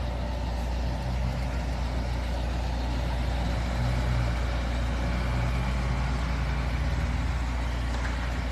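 An engine idling steadily, a continuous low hum.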